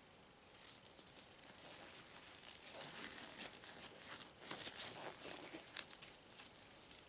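Black gloves rustling and crinkling as gloved hands rub together and stroke a shiny satin suit jacket. Faint, growing busier about a second in, with a run of small crackles and one sharper crackle late on.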